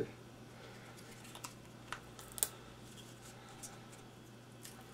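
Faint, scattered clicks and ticks of fingers working a small drill bit and tuner out of their plastic packaging, over a faint steady low hum.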